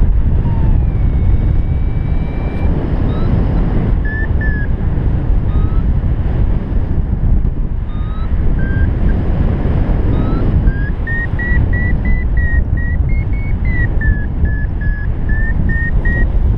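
Wind rushing over the microphone in paraglider flight, with a variometer beeping in short tones that step up and down in pitch. From about two-thirds of the way through the beeps come in a steadier, higher run, the vario's signal of climbing in lift.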